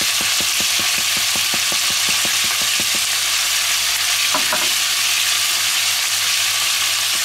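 Cubes of meat searing in lard in a red enamelled cast-iron cocotte: a steady sizzle with frequent small crackling pops, which thin out in the second half.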